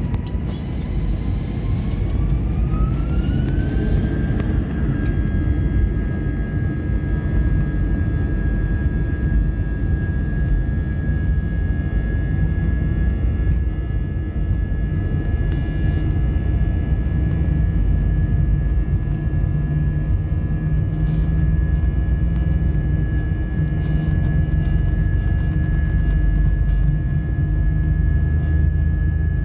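Airbus A320's jet engines spooling up to takeoff power, heard from inside the cabin. A whine rises over the first four or five seconds, then holds as a steady high tone over a loud low rumble of the takeoff roll.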